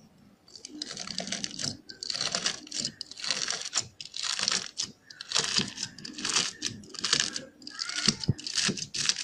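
Slime being squeezed and pressed by hand, crackling and popping in repeated squeezes about once a second.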